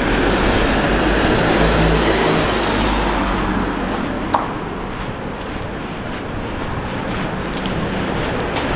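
Street traffic: a car drives past in the first few seconds, then a lower steady background of road noise. A single sharp click a little over four seconds in.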